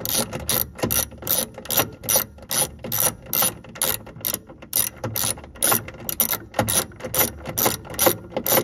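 Ratcheting socket wrench, with an extension and an 11/32 deep socket, clicking steadily at about two to three clicks a second as it backs a nut off its stud.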